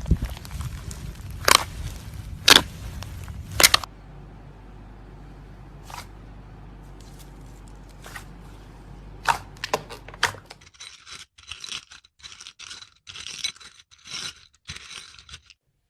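Slime being squished and pressed by hand, crackling with three sharp pops in the first few seconds. Then comes a quieter stretch with a low hum and a few clicks, and near the end a run of about eight crunchy squishes.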